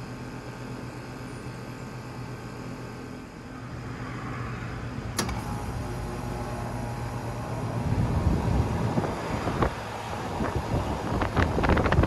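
Two 2023 Carrier Sentry heat pump outdoor units starting up in cool mode. A steady electrical hum gives way to louder running about four seconds in, with a sharp click just after. Wind rumbles and buffets the microphone in the last few seconds.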